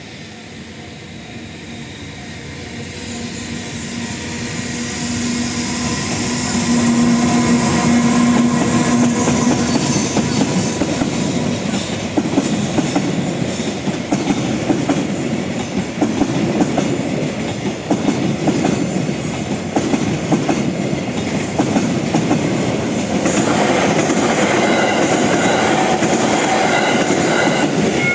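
A long freight train hauled by an EH500 electric locomotive approaches and passes over the level crossing, its wagons' wheels clattering over the rail joints at a steady pace. Near the end the ringing of the crossing's warning bell comes through.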